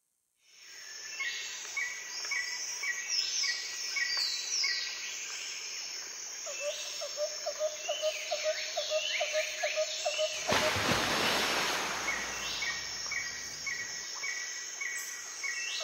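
Birds chirping and whistling, fading in at the start: rows of short repeated notes and falling whistles, with a brief rushing noise a little past the middle.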